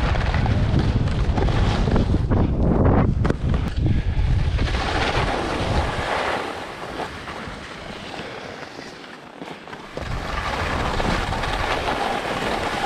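Wind buffeting the microphone during a ski run, heavy for the first five or six seconds and then easing, with skis hissing and scraping across the snow through turns.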